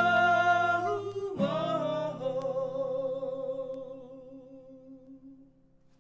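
The final notes of a song: two overdubbed male voices singing in harmony over a guitar chord, changing note about a second and a half in, then holding the last note with vibrato as it fades out.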